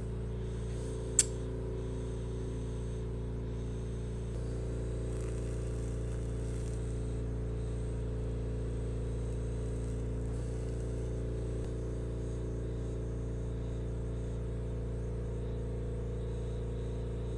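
Steady low machine hum, made of several level tones, with one sharp click about a second in.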